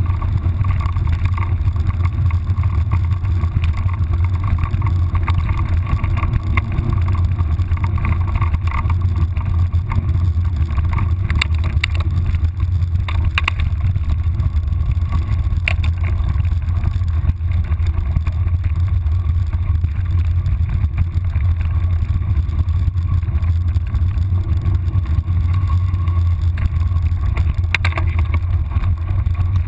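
Steady low rumble of wind buffeting the microphone of a camera moving quickly along a gravel path, with a few sharp clicks.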